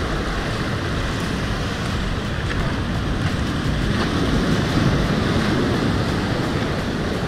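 Heavy ocean surf breaking against boulders and washing up a rocky, pebbly shore, with wind buffeting the microphone; the wash swells a little louder about four to five seconds in.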